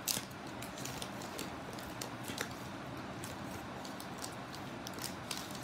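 KitKat wrapper being torn open and crinkled by hand: scattered sharp crackles over a steady background hiss, the loudest right at the start.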